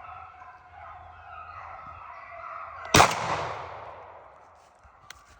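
Beagles baying in the chase, then a single loud shotgun shot about three seconds in that rings out and fades slowly, killing the rabbit.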